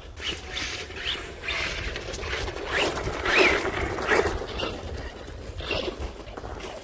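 Arrma Senton 3S brushless RC monster truck's motor whining up and down in several short bursts of throttle, its tyres scrabbling for grip on icy frozen snow.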